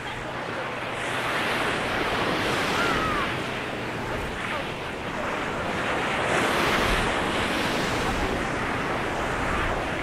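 Small Mediterranean waves breaking and washing up the sand, a continuous surf wash that swells and eases as each wave comes in, with a hissing surge about six and a half seconds in.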